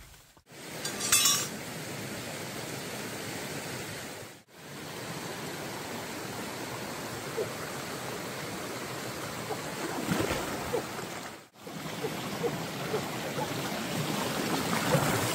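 Flowing stream water, a steady rushing, broken by three brief drop-outs where the sound cuts away. A sharp click about a second in and a few small clinks later.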